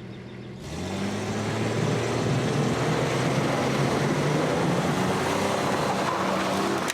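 A motor starts up about a second in, rising briefly in pitch, then runs steadily and loudly with a hiss over a low hum.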